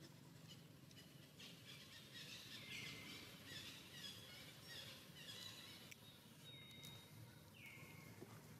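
Faint bird chirps: a run of short, high notes that fall in pitch, clustered in the middle, with another call near the end, over a quiet outdoor background.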